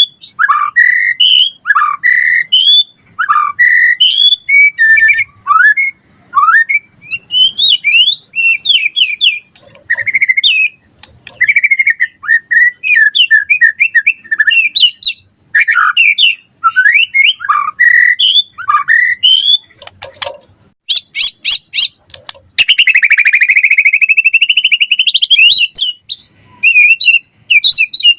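White-rumped shama (murai batu) singing vigorously, a rapid, varied run of loud whistled phrases and sweeping notes. About twenty seconds in comes a quick series of clicks, then a long harsh buzzing note before the whistling resumes.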